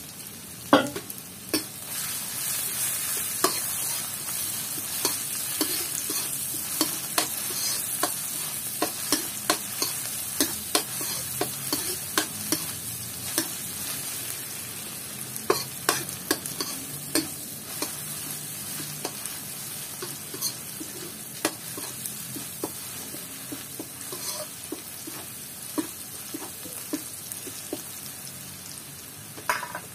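Chopped garlic sizzling in hot oil in a metal wok, being fried until fragrant. A metal ladle stirs it, clicking and scraping against the pan many times over the steady sizzle.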